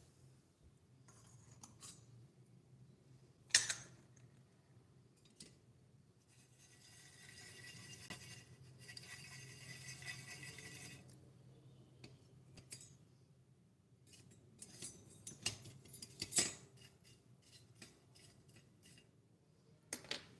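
Miniature stainless-steel pot of popcorn: a few sharp metal clicks, then popped corn rattling and scraping inside the pot as it is shaken for about four seconds. A run of light metal clinks and taps follows near the end.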